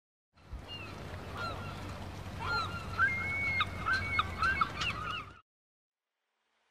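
Several birds calling in a rapid series of short, pitched calls over a low steady rumble, cutting off suddenly about five and a half seconds in.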